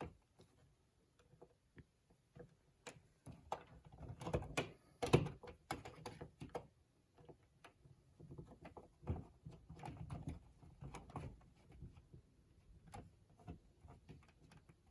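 Plastic outlet cover plate being fitted and screwed on: scattered small clicks, taps and scrapes of plastic and a screwdriver, the loudest click about five seconds in.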